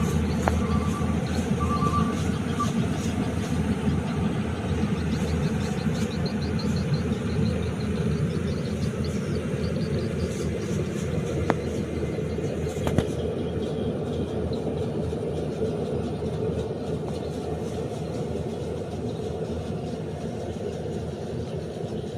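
A rice combine harvester's engine running steadily. A few short high beeps sound in the first three seconds.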